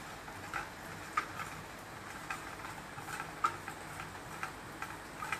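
Paneer cubes being mixed by hand in a wet spice marinade in a steel bowl: soft, irregular squelches and light taps against the metal, several a second.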